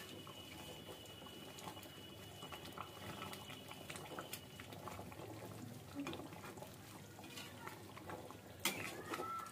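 A metal spatula stirring thick chicken korma gravy in an aluminium kadhai, giving faint wet, bubbling squelches. A few sharp clinks of metal on the pan come near the end.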